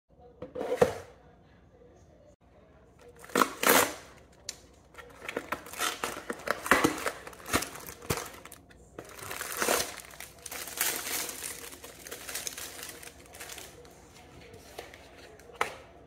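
Cardboard box and plastic wrapping of frozen sliders being torn open and handled: irregular crinkling and tearing rustles, with a few sharper loud bursts.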